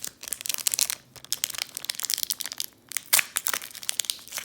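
Foil wrapper of a Pokémon booster pack crinkling and crackling in quick, irregular bursts as it is gripped and pulled at to tear it open, with a short pause near the middle and a sharp crackle a little after three seconds.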